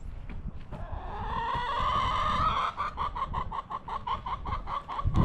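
A chicken calling: one long drawn-out note starting about a second in, then a run of quick repeated clucks, about five a second. A low rumble runs underneath.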